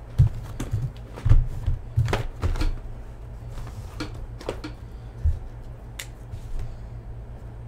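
Small cardboard hobby boxes of trading cards being gathered, knocked together and set down on a rubber mat. A run of soft knocks and taps comes in the first few seconds, then lighter scattered clicks, with one sharp click about six seconds in.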